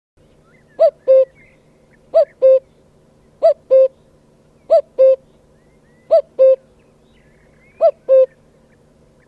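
A bird giving a two-note call, a slightly higher note then a lower one, repeated six times about every 1.3 seconds, with faint chirps of other birds behind it.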